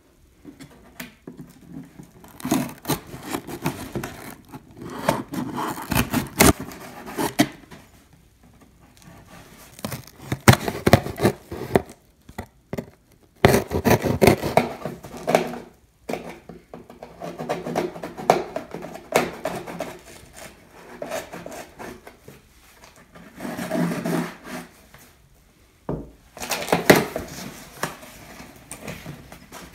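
A blade slitting the packing tape on a cardboard shipping box, then the box's cardboard flaps being handled and pulled open: irregular scrapes, rustles and knocks coming in bursts.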